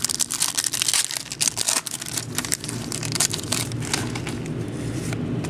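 Trading cards and their packaging being handled and flipped through: a steady run of rustles, clicks and crinkles.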